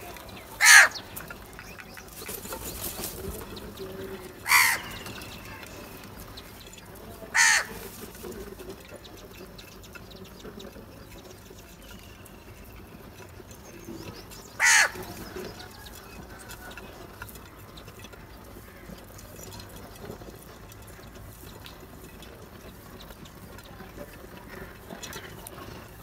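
House crows cawing: four short, loud caws, spaced a few seconds apart, the last about fifteen seconds in, with a faint outdoor background between them.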